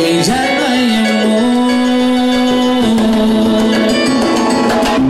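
A live Latin dance band playing, with a male lead singer over keyboard and guitar; the melody holds long, steady notes.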